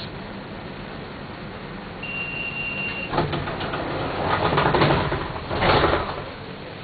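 Inside a city bus: a single high beep lasting about a second, then a click and two loud hissing surges as the bus's pneumatic doors work, over the steady hum of the bus.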